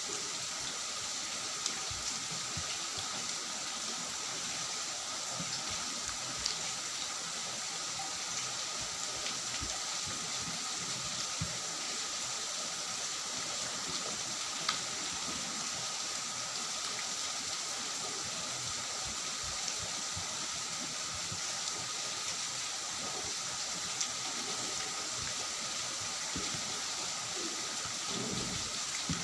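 A steady hiss throughout, with soft scattered clicks of fingers mixing rice on a steel plate and chewing.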